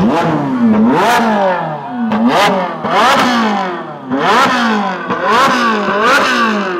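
Sports car engine revved hard in repeated throttle blips, about one a second, each rising sharply in pitch and falling back.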